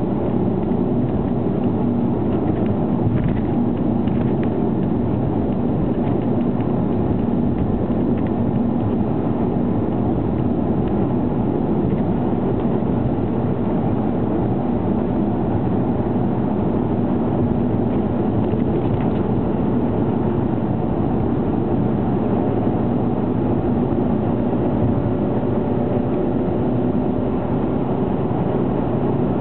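Car driving fast, heard from inside the cabin: a steady, loud rumble of engine and tyre-on-road noise with a faint constant engine tone.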